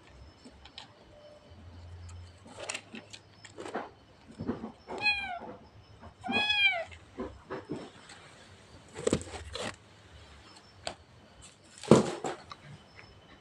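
Domestic cat meowing twice in a row, each meow rising and then falling in pitch. Scattered knocks and rustling come around it, the loudest a sharp knock near the end.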